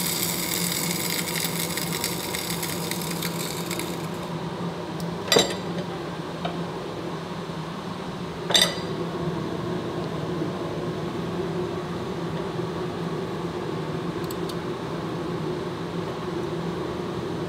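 Crankshaft grinding machine running with a steady hum. A bright hiss from the grinding wheel and coolant fades out after about four seconds. Two sharp clicks follow, a few seconds apart, as the hand-fed wheel head is adjusted.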